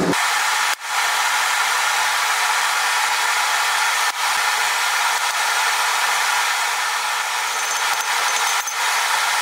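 Steady rushing hiss of a blacksmith's forge fire under its air blast, broken by a brief dropout about a second in.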